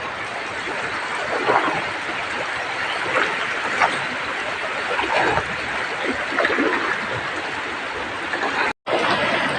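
Heavy rain falling steadily, an even hiss with scattered splashes. The sound cuts out for an instant near the end.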